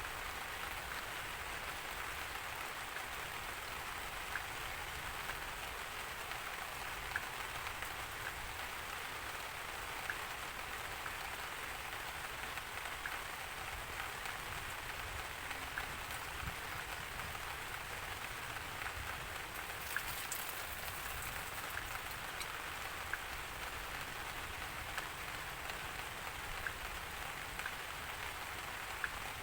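Steady rain falling, an even hiss with sharp ticks of single drops every second or so.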